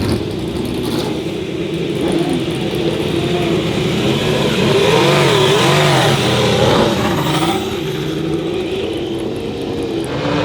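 2018 Ferrari SF71H Formula 1 car's 1.6-litre turbocharged V6 running, its revs wavering up and down and loudest about halfway through.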